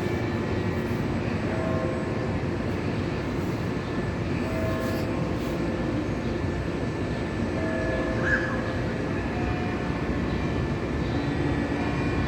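San Fernando Cathedral's tower bells ringing, tones at several pitches sounding every few seconds over a steady background hum.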